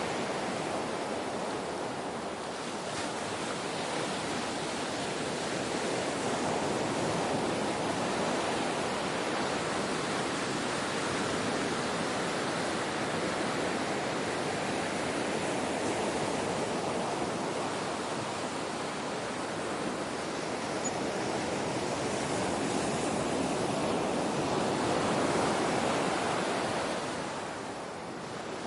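Ocean waves washing onto a shore, a steady rushing surf that swells and ebbs slowly, with one larger wave building about three-quarters of the way through and then dying away.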